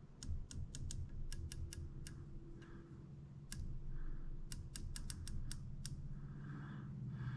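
West Hunter rifle scope's elevation turret being dialed up during boresighting to correct a low point of aim: a series of short, sharp clicks in small runs, over a faint steady low hum.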